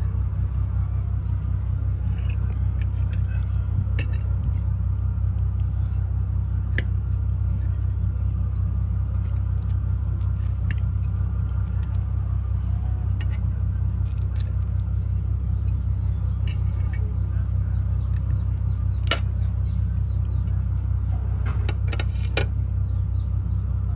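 A steady low hum throughout, with scattered light clinks and clicks of cutlery and dishes, a cluster of them about three-quarters of the way through.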